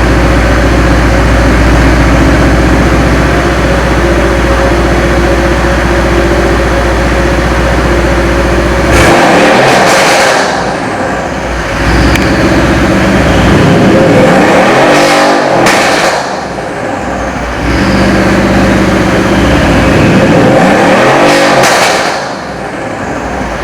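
Car engine running steadily, then revved up and let fall back three times, about nine, fourteen and twenty seconds in.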